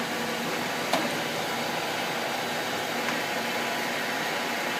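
Gisholt 3L saddle-type turret lathe running with its feed clutch disengaged: a steady whir with a faint low hum, and a single click about a second in as the turret saddle is moved.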